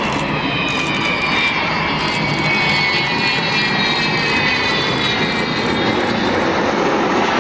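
Avro Vulcan's four Rolls-Royce Olympus turbojets running loud in a display pass, a steady roar with several high whistling tones slowly sliding in pitch: the Vulcan 'howl'.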